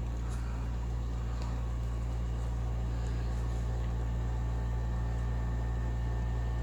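Steady low hum, with a few faint small clicks over it.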